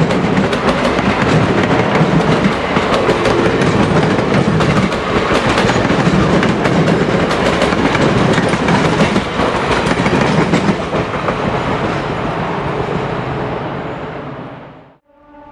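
Train cars rolling along a railway, with a dense rumble and rapid clicking of wheels over rail joints. The sound fades away over the last few seconds.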